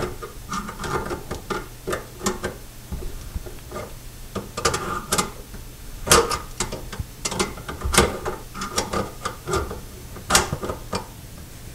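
Pliers clicking and scraping against the metal locknut of a bathroom sink pop-up drain as it is tightened in short turns: a run of irregular metallic clicks and knocks, the sharpest about six, eight and ten seconds in.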